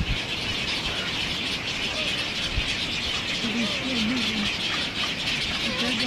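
Nesting egret colony: short, low, croaking calls from about three and a half seconds in, over a steady hiss.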